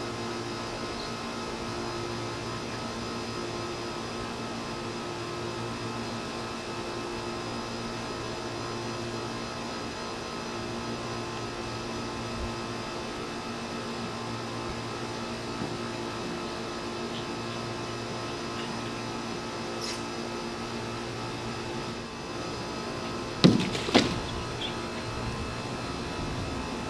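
Steady mechanical hum made of several fixed tones. Near the end, two short, loud, sudden sounds come about half a second apart.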